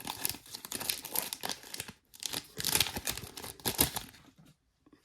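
A trading card pack wrapper crinkling and tearing as it is pulled open, in irregular crackling handfuls that die away about a second before the end.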